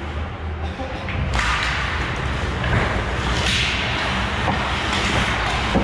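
Ice hockey play on a rink: skate blades scraping and carving the ice, getting busier about a second and a half in, with sticks and puck clacking and a sharp crack at the end.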